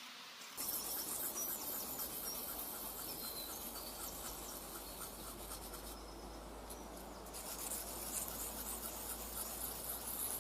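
Steel blade of a multitool being ground on a wet rock with spit, a rapid run of rasping scraping strokes that starts abruptly about half a second in.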